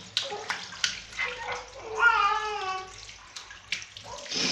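Water poured from a plastic mug splashing in short bursts onto a baby's back during a bath. About two seconds in there is a short, high-pitched voice that falls in pitch.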